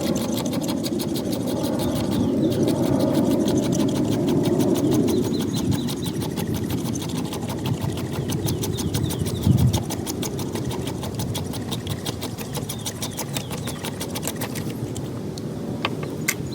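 Pocket knife blade rapidly scraping a resinous pine knot (fatwood), many quick even strokes a second, shaving off fine scrapings as tinder for ferro-rod ignition. A couple of sharp clicks near the end.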